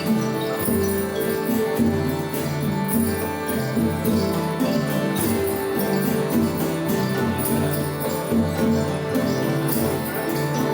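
Freely played acoustic folk instruments: a steady drone held under low notes that change every half second or so, with many quick, bright percussion strokes layered over them.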